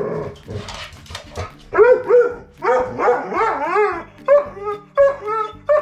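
Dog vocalizing excitedly in a run of about six short, wavering yowl-barks and whines, the eager "talking" of a dog that has just been asked if it wants to go for a walk.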